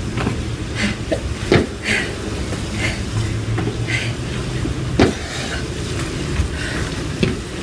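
Feet landing with a thud on a tiled floor during jump exercises, two loud landings about a second and a half in and near the five-second mark, over a steady low rumble.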